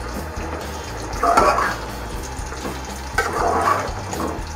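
A metal spatula stirring shredded chicken through wet masala in an aluminium pan: two wet swishing strokes about two seconds apart, over a steady low background hum.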